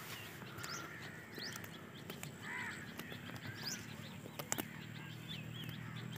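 Faint birds calling: small birds chirping on and off, with a crow calling about two and a half seconds in. A few sharp clicks are heard over a faint low hum.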